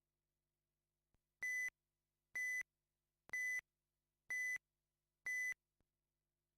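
Race timing system sounding its electronic start countdown: five short, identical beeps about one second apart, signalling that the race start is imminent.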